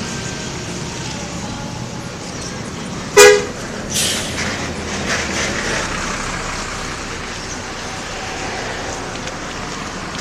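A bus horn gives one short, loud toot about three seconds in, followed about a second later by a softer, brief burst of noise, over steady road traffic.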